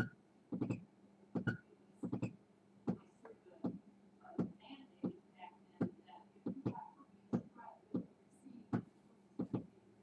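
Wind gusts buffeting the microphone: a string of short, sharp pops coming irregularly, about one or two a second.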